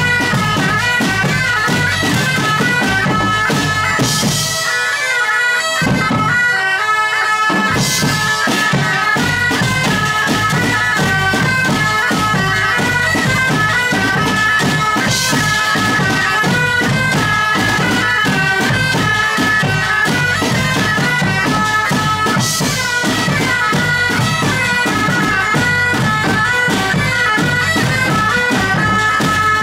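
Several medieval bagpipes play a lively melody together over their drones, backed by drums and cymbal crashes. The drums drop out for a few seconds about five seconds in, then come back with a crash.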